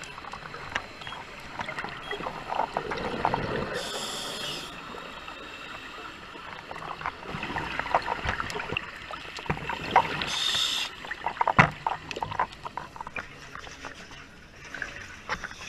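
Underwater sound through a GoPro housing: a scuba diver's regulator breathing, with two short hissing breaths and the crackling, gurgling rumble of exhaled bubbles, and scattered clicks and knocks. Near the end the camera reaches the water surface in an air pocket, and water laps and drips.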